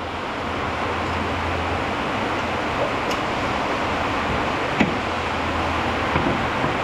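Steady rain falling, an even hiss, with a couple of faint clicks partway through.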